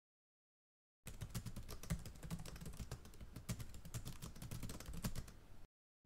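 Rapid, irregular clicking like typing on a keyboard, starting about a second in and stopping abruptly shortly before the end.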